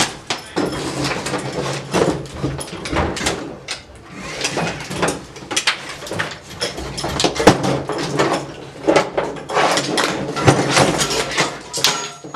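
Metal parts and hand tools clanking, clicking and scraping in quick irregular knocks while a tight threaded part is worked loose on a 110cc pit bike being taken apart.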